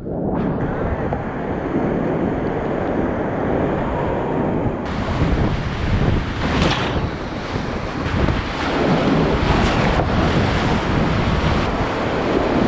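Whitewater rapids rushing loudly around a kayak, heard close up from a camera on the boat. The sound is muffled at the very start as the camera comes up out of the water. A couple of louder splashes come about six and a half and nine and a half seconds in.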